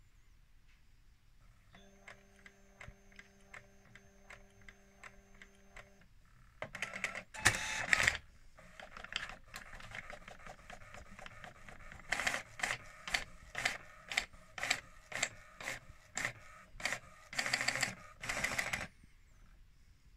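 Canon i70 portable inkjet printer printing a page. First a steady motor hum with light regular ticks, then a loud rasp of paper feeding about seven seconds in, then a run of short rhythmic strokes about twice a second as the print head carriage sweeps back and forth.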